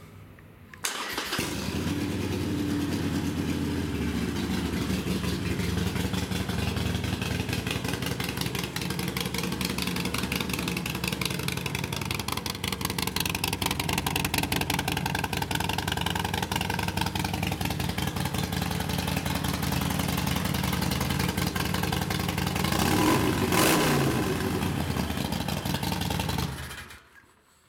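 2015 Harley-Davidson Sportster Forty-Eight with a fuel-injected 1200cc V-twin, fitted with an Arlen Ness 2-into-1 exhaust and Heavy Breather intake. It starts up about a second in and idles steadily, is revved once near the end, then is shut off. It is running well, with no issues.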